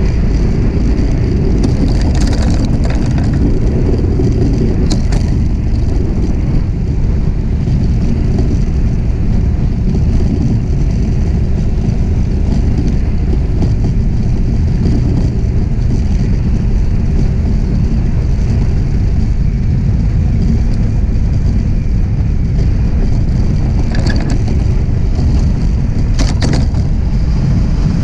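A DN iceboat sailing fast on clear lake ice: a steady, loud rumble and rush of the steel runners on the ice and of wind over the boat. A few brief sharp crackles sound here and there, clustered near the end.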